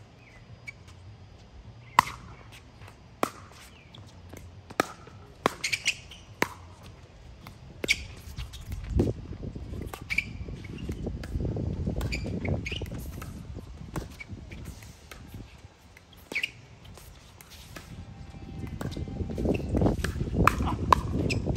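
Pickleball paddles striking a hard plastic pickleball in a rally: a series of sharp pops, some in quick runs less than a second apart, others a few seconds apart. A low rumbling noise swells twice, about nine seconds in and again near the end.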